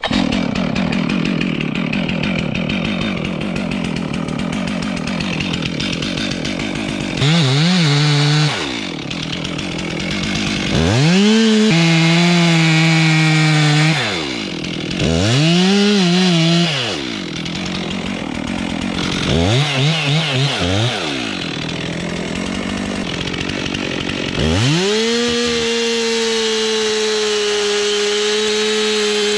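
Two-stroke chainsaw idling, then revved up and cutting into wood in four short bursts, each rising and falling in pitch. Near the end it is held at a steady high speed.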